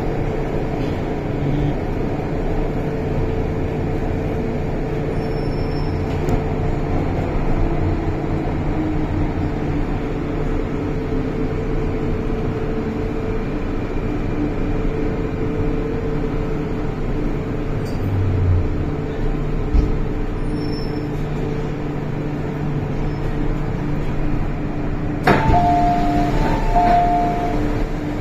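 MTR M-Train heard from inside the carriage while running: a steady rumble with a few low steady hums. Near the end a sharp click comes, then a two-note electronic chime sounds twice.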